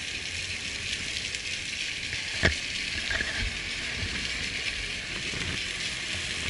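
Steady hiss of outdoor ambience picked up by a walking camera, with one sharp click about two and a half seconds in.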